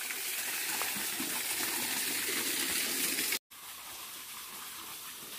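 Steady rush of flowing river water. It cuts off abruptly about three and a half seconds in and comes back quieter.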